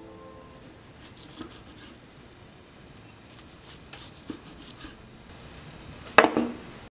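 Steel ulu knife blade cutting through a tomato on a wooden cutting board: soft scrapes and light taps of the blade on the wood. Near the end comes one louder knock as the knife is set down on the wooden bench, and then the sound cuts off abruptly.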